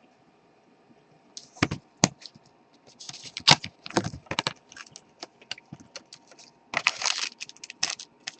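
Football card boxes and packs being torn open by hand. After about a second and a half of quiet come irregular sharp clicks and taps, with short bursts of crinkling and tearing of plastic wrap and cardboard.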